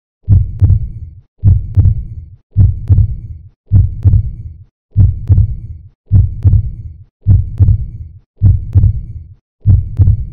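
Heartbeat sound effect: a loud, low double thump (lub-dub) repeating slowly and evenly, about once a second, nine beats in all.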